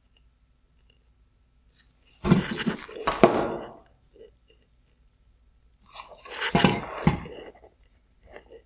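Two bursts of crunching, clicking handling noise, one about two seconds in and another about six seconds in, as plastic headlight parts are moved and handled.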